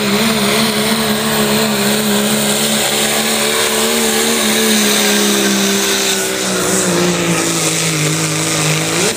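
Diesel engine of a Dodge Ram pickup running at full throttle while pulling a sled, a loud steady drone that dips in pitch over the last couple of seconds.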